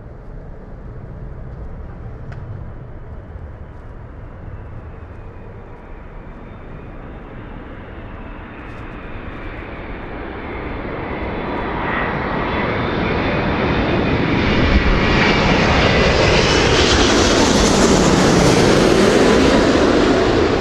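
Airbus A380-861's four Engine Alliance GP7200 turbofans on landing approach, a steady jet noise with a high whine that slowly bends in pitch. It swells over the last half as the airliner comes close and is loudest near the end.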